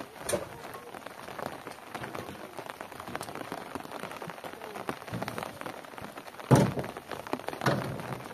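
Rain falling and pattering steadily on surfaces, with sharp knocks and heavy thuds of belongings being loaded into a pickup truck's bed; the loudest thud comes about six and a half seconds in, with another a second later.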